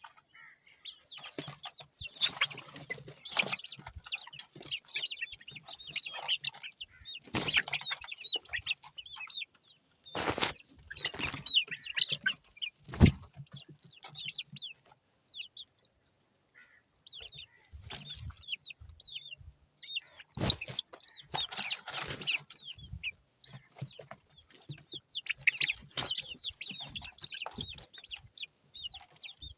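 Birds chirping and clucking in many short, high calls, broken by a few bumps or rustles, the sharpest about thirteen seconds in.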